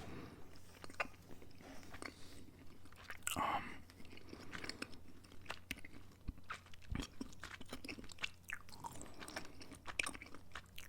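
Close-miked ASMR mouth sounds: many small wet clicks and chewing noises, irregular and scattered, with a brief louder rustle a little over three seconds in.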